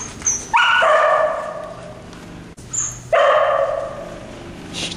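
Cow dog barking: two loud bouts of barking about two and a half seconds apart.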